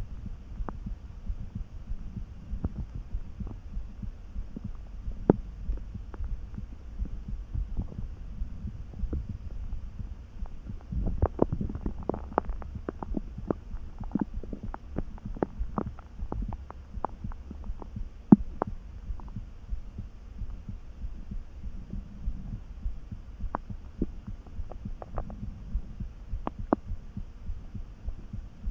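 A hungry, near-empty stomach churning calmly, picked up close to the belly: a steady low rumble with scattered small gurgling pops, busiest in the middle stretch.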